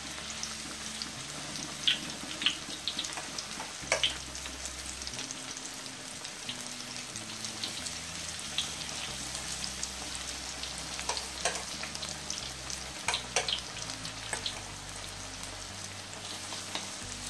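Corn and shrimp fritter batter deep-frying in a wok of hot oil as more batter is spooned in: a steady sizzle with sharp pops and clicks now and then.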